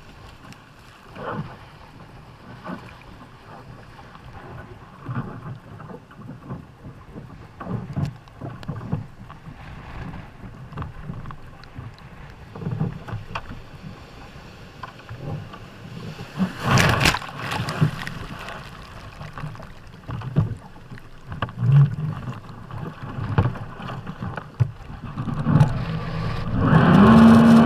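Jet ski crossing rough, choppy water: uneven slaps and thumps of waves against the hull, wind on the microphone, and a loud splash of spray about two-thirds of the way through. Near the end the engine revs up and holds steady at higher revs.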